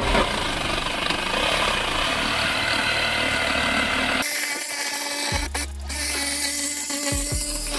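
Milwaukee M18 cordless jigsaw sawing through drywall to cut out a round hole for about four seconds. It then gives way to background electronic music with a steady bass.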